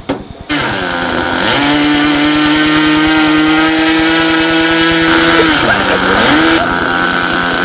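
A model airplane's glow engine starts abruptly about half a second in and runs at a high, steady whine. Its pitch sags and recovers twice, briefly about a second in and again near six seconds, as the throttle is worked.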